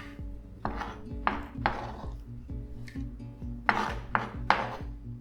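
Kitchen knife chopping avocado on a chopping board: six sharp strokes with short scraping tails, in two groups of three, over steady background music.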